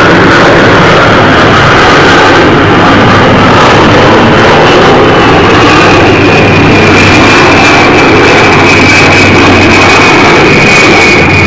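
Jet airliner passing low overhead: loud, steady jet engine noise with a high whine that slowly falls in pitch, loud enough to overload the camcorder's microphone.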